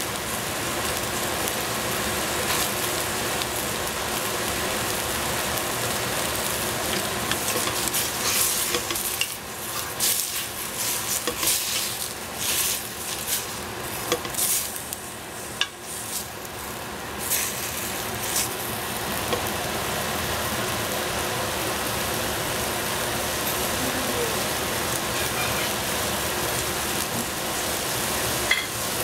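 Bok choy sizzling steadily in a stainless-steel pot. From about 8 to 18 seconds in, a wooden spatula scrapes against the pot and turns the greens in a series of uneven strokes.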